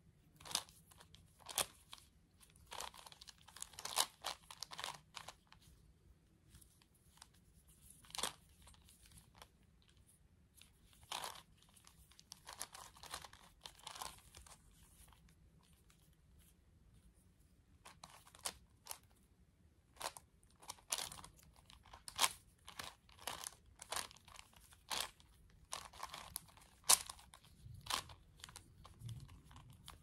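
A 5x5x5 Rubik's cube being turned by hand: irregular plastic clicks and short scrapes as its layers are twisted, coming in bursts with a brief pause midway.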